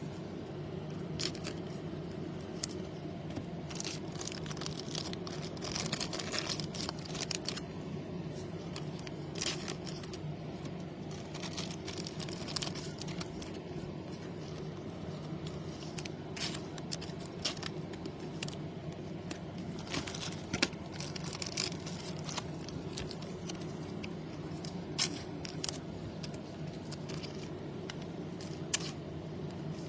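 Soft plastic card sleeves crinkling and rustling in short scattered bursts as baseball cards are slid into them one after another, over a steady low background hum.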